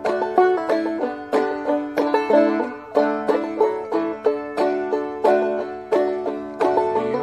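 Five-string banjo played clawhammer style in aDADE tuning: a steady, rhythmic old-time tune of sharply plucked, ringing notes.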